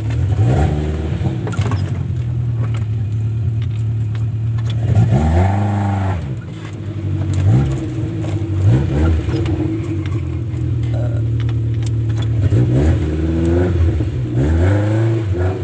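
Off-road vehicle's engine running steadily, revved up and back down about six times.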